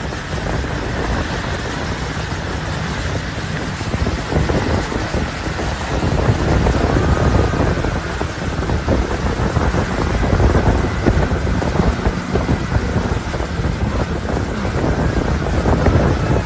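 Wind buffeting the microphone over the steady running of a tow boat's engine and the rush of its churning wake, a little louder in gusts from about six seconds in.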